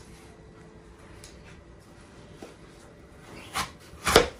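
Quiet handling as a peeled apple is cored with a knife, then two sharp knocks about half a second apart near the end, the second louder: the knife or apple striking the cutting board.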